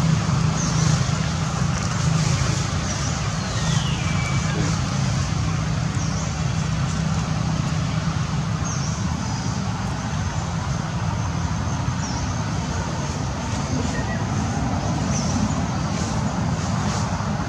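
Steady low motor rumble, like road traffic, with short high chirps repeating about every three seconds.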